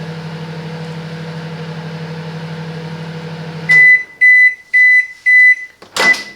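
Silvercrest SMWC 700 D1 microwave oven running with a steady hum, which stops a little over halfway through, followed by four high beeps about half a second apart signalling the end of the heating cycle. A sharp knock follows near the end.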